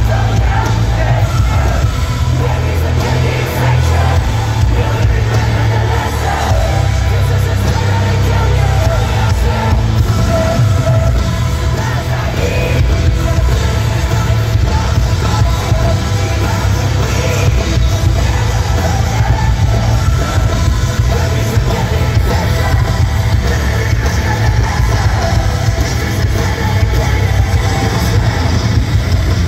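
A live heavy rock band playing loud in an arena: distorted electric guitars, bass and drums with a heavy steady low end, and the singer's voice over it.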